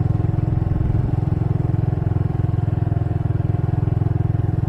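Motorbike engine running at a steady speed while riding: a low, even drone with a fast, regular pulse.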